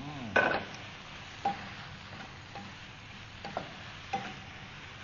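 Wooden spatula stir-frying sliced bạc hà (giant taro stems) in a hot frying pan: a steady sizzle with several sharp scrapes and knocks of the spatula against the pan, the loudest about half a second in.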